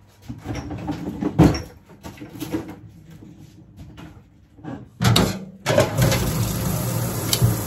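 A few knocks and rustles of kitchen handling, a door or drawer among them. About six seconds in, a kitchen tap turns on and water runs steadily into a stainless steel sink.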